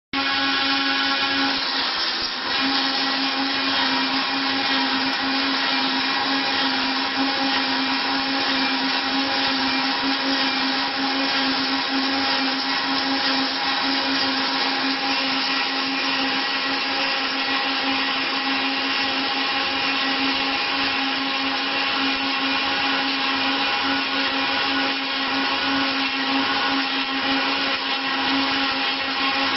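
Wood copy milling machine running steadily: its high-speed motor and spinning cutter give a constant whine over a dense rushing noise.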